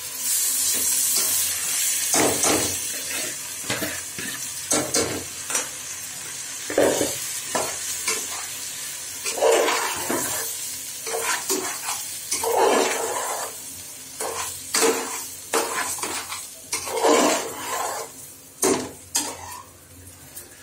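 Washed polao rice going into hot oil with fried onions and whole spices in a metal pot, hissing at first, then stirred with a metal ladle: repeated scrapes and clinks of the ladle against the pot over a light sizzle.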